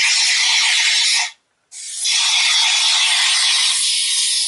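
Pressurized pump-action toy water blaster shooting a jet of water into a paper cup, in two squirts. The first stops a little over a second in, and the second, longer one starts moments later and keeps going.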